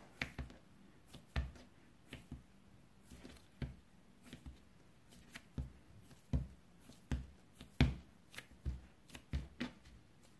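Hands kneading and pressing a ball of pie dough against a plastic pastry board: irregular soft pats and thumps, about one or two a second.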